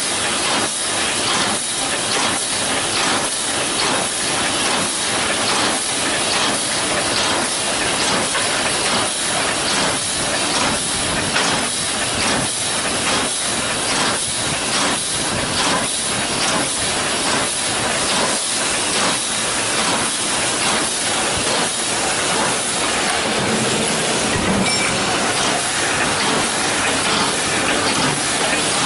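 Wire mesh welding machine for chicken cages running: regular, repeated clacking strokes over a constant hiss.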